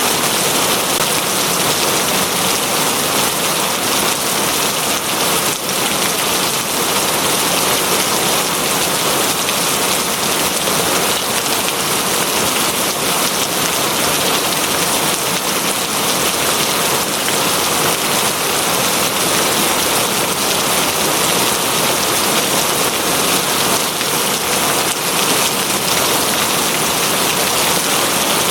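Steady, heavy rain falling on a surface, a dense even hiss with no breaks.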